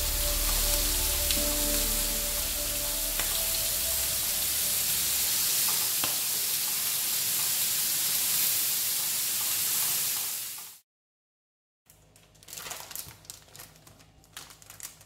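Pork belly slices sizzling steadily in a hot grill pan, with a few faint clicks as tongs turn the meat; music fades out over the first few seconds. The sizzle cuts off about 11 seconds in, and after a second of silence there is soft crinkling of a plastic packaging bag being handled.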